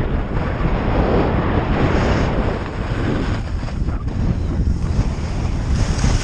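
Wind buffeting the camera's microphone during a downhill ski run, mixed with the sound of Rossignol skis sliding through snow.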